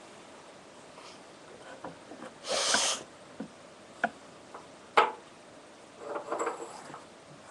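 A woman sniffing through her nose: one short, loud sniff about two and a half seconds in, a couple of small sharp clicks, and a softer snuffle near the end.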